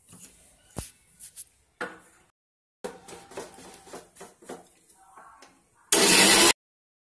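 Clicks and knocks of a steel mixer-grinder jar being lidded and set on its base, then about six seconds in the electric mixer grinder starts grinding the chutney ingredients, loud, for about half a second before cutting off abruptly.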